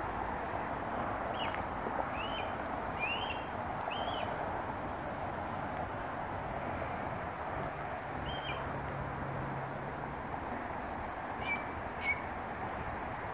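A bird calling: about six short, arched calls spread through the first nine seconds, then two sharper chirps near the end, over a steady background hiss.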